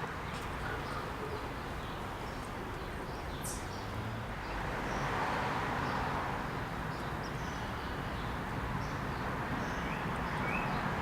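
Steady background hiss with a few faint bird chirps: a short high chirp about three seconds in and a run of quick rising chirps near the end.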